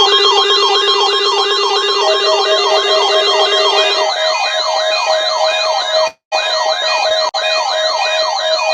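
Weather alert radio alarms going off together: a siren-like tone wailing up and down about twice a second over steady and beeping alert tones. A lower steady tone stops about four seconds in, and the sound cuts out for a moment around six seconds in.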